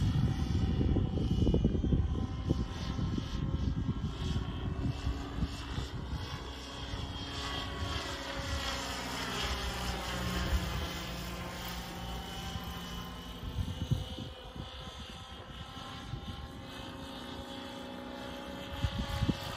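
Scale RC helicopter in Bell 222 body on an Align T-Rex 700 frame, flying: a steady rotor and drive whine that shifts in pitch as it comes closer and moves away again, passing nearest about halfway through. Gusts of wind hit the microphone in the first few seconds.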